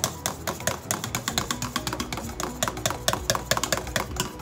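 Danish dough whisk stirring stiff dough in a stainless steel mixing bowl, its wire head knocking and clinking against the bowl in a quick, uneven run of several strokes a second.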